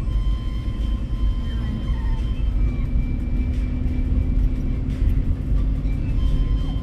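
Road and engine noise inside a moving car's cabin: a steady low rumble, with a few faint steady tones over it.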